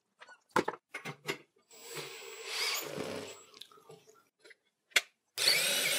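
A few sharp clicks and knocks, a scraping slide, then a cordless drill with a socket extension spinning the screw of a motorcycle lift stand, running steadily with a held pitch from a little past halfway.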